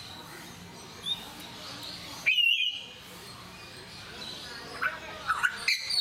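African grey parrots calling: a short whistle about a second in, a loud whistled call a little past two seconds, then a quick run of short calls and a loud clear whistle near the end.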